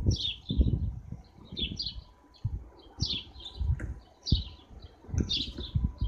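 House sparrows chirping, many short chirps in quick bursts, over irregular low thumps and flutters.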